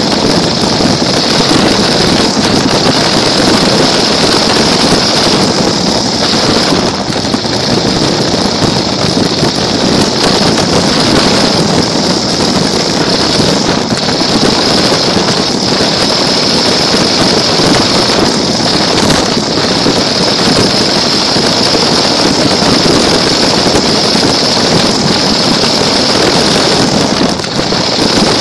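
Small toy car driving, its electric motor and gears making a loud, steady high whine with rumbling rolling noise, heard close up from a camera mounted on the car.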